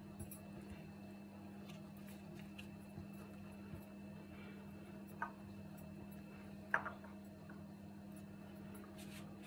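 Hands rolling thin yufka pastry sheets into a börek roll on a stone countertop: faint handling sounds, with two light taps about five and seven seconds in, over a steady low hum.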